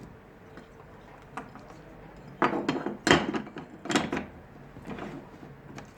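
Microwave lab bench parts being handled and fitted together: a run of sharp knocks and clatters starting about two and a half seconds in, loudest over the next second and a half, then a few lighter taps.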